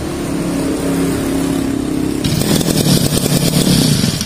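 Small engine of a Tanika brush cutter running on carburetor cleaner sprayed into its air intake. It runs steadily at low speed, then about two seconds in revs up sharply and loudly. It runs only briefly this way, and the owner takes that to mean the carburetor itself must be opened.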